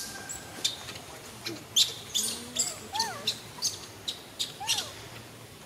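Newborn macaque giving a few short, thin cries, each rising then falling in pitch, over irregular sharp clicks and rustles.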